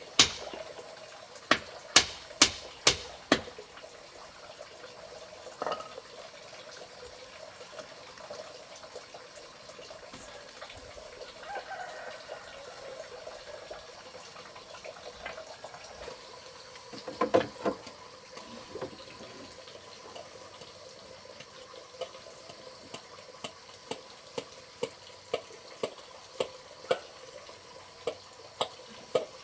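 Four or five sharp blows of a hammer on a wooden frame in the first few seconds, then a steady faint wash of noise, a short cluster of knocks about halfway through, and a run of lighter taps about twice a second toward the end.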